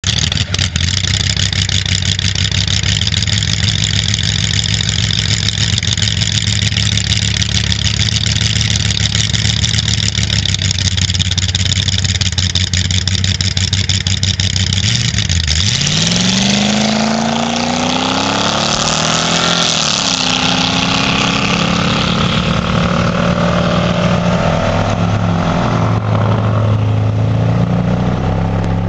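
Belly-tank lakester race car's engine idling steadily, then about halfway through revving up as the car pulls away from the start line, the pitch climbing, peaking and dropping again. An engine keeps running, its pitch shifting, to the end.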